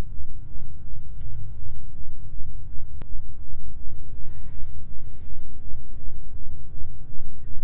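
Steady, loud low rumble with a faint hum above it, broken by a single sharp click about three seconds in.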